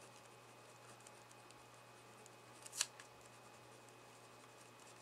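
Faint scratching of a pen writing on paper, in short light strokes, with one sharper scratch near the middle.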